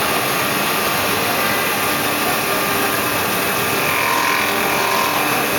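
CNC wood lathe turning a wooden spindle, its cutter steadily shearing the spinning wood over the hum of the machine's motor.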